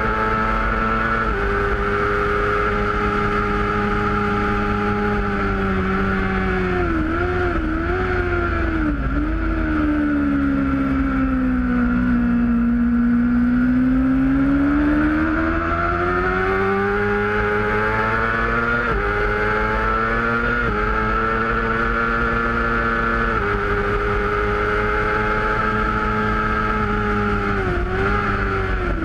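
A sport bike's engine at racing revs, heard onboard. It shifts up a gear about a second in, then drops through downshifts under braking to its lowest revs in a slow corner midway. It climbs again with several quick upshifts and falls once more near the end, over a steady wind rumble on the microphone.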